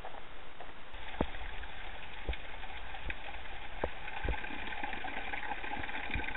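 A thin stream of spring water trickling down a mossy rock face and splashing below: a steady rush with a few scattered sharp taps. It starts about a second in.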